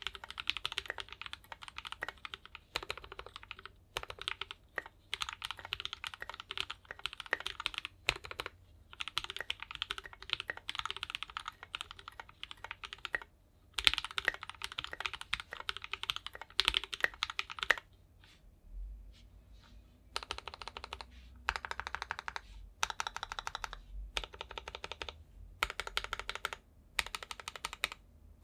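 Mechanical keyboard with Gateron Full Milky Yellow linear switches, a KBDFans 5 Degree board, being typed on: a steady run of clacking keystrokes. About two-thirds of the way through there is a short lull, then the typing comes in fast bursts of about a second each with brief gaps between them.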